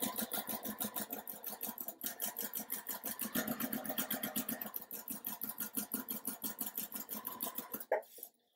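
Electric home sewing machine stitching a quarter-inch seam through two layers of fabric, its needle running in a rapid, even rhythm that stops near the end.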